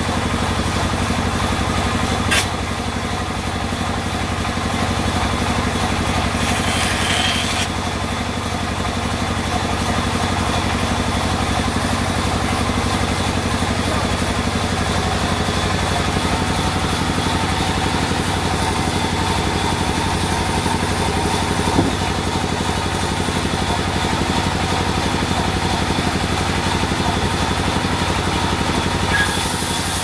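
Large vertical band saw running steadily as its blade rips lengthwise through a crooked teak slab: a constant machine hum, with a brief hiss about seven seconds in and a few short knocks.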